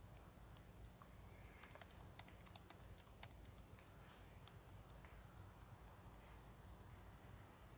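Near silence with faint, irregular clicking, several light clicks a second at times.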